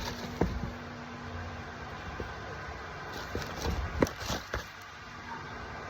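Cardboard shoebox being handled and opened: a few light knocks and scrapes against a steady hiss.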